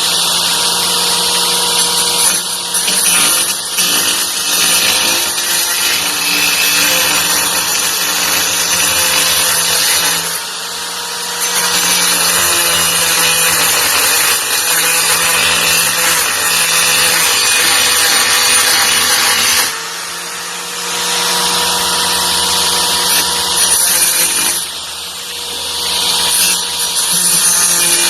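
Titanium AG710 710 W angle grinder running with its disc grinding against work, a steady motor tone under loud hissing grinding noise. The grinding noise drops for about a second three times, about a third of the way in, two thirds of the way in and near the end, while the motor keeps running.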